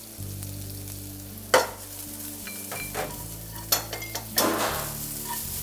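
Onions frying and sizzling in a pan while being stirred, with a few sharp clatters of metal utensils on metal, the loudest about a second and a half in, over a steady low hum.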